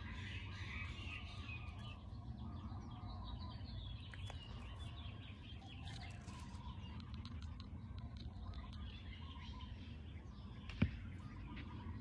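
Several small birds chirping and twittering, with many short calls and trills overlapping, over a steady low background rumble. A single sharp click near the end.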